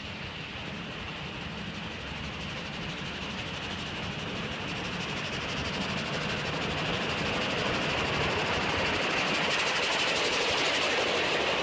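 Mount Washington Cog Railway steam locomotive No. 9 and its coach rolling past on the rack track, getting steadily louder as they come close, with a hiss running through it.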